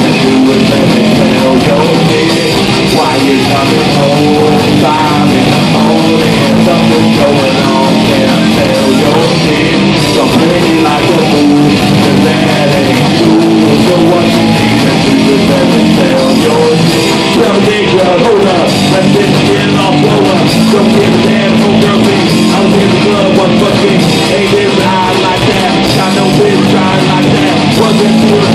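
Live rock band playing loud, with electric guitars and bass guitar.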